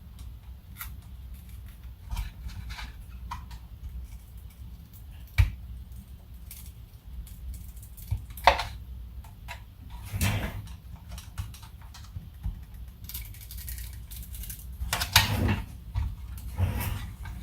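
Hands working on a car instrument cluster: scattered clicks, taps and scuffs of plastic parts being handled, with sharp clicks about five and eight and a half seconds in and longer scraping around ten and fifteen seconds, over a steady low hum.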